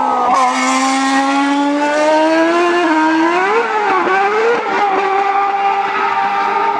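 2013 Ferrari Formula 1 car's 2.4-litre V8 running on track. The engine note drops at first, climbs with brief dips at the gear changes, then holds a steady pitch for the last couple of seconds.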